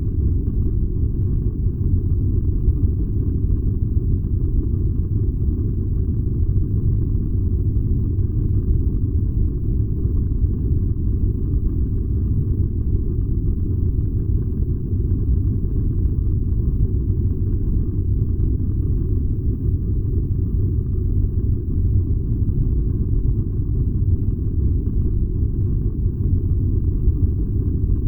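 Furnace running: a steady low rumble that does not change.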